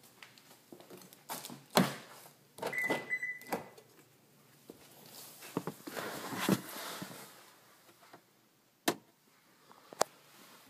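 2011 Toyota Camry's driver door being opened and someone climbing into the seat: a loud latch click about two seconds in, a brief high beep, then a stretch of rustling and two sharp clicks near the end.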